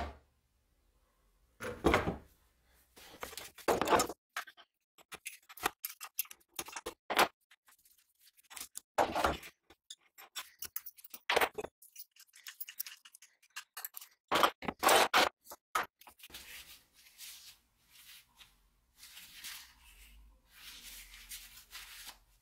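Metal C-clamps and bar clamps being unscrewed and taken off a glued wooden axe handle: irregular clicks, knocks and scrapes of metal on wood and metal, the loudest about two seconds in and again around fifteen seconds in.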